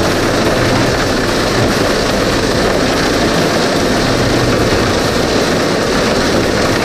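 New Holland TD5050 tractor running under load with its Tehnos 2.5 m mulcher shredding corn stalks: a loud, steady mix of engine drone and the rushing noise of the chopping rotor.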